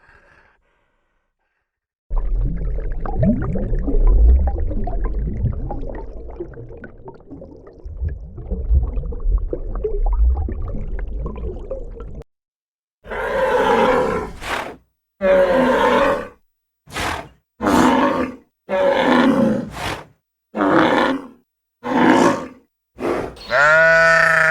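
Farm animal calls: about ten seconds of low, rough grunting, then a string of short separate calls about once a second, the last one longer and held at a steady pitch.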